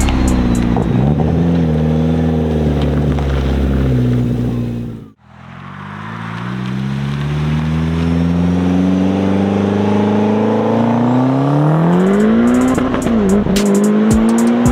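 Tuned Mitsubishi Lancer Ralliart's turbocharged four-cylinder engine. For the first few seconds the revs waver up and down, then it cuts off abruptly. The engine then pulls hard with the revs climbing steadily for several seconds, dips briefly near the end and climbs again.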